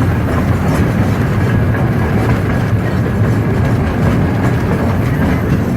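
Steam train running on the rails, heard aboard: a steady, loud rumble of wheels and cars.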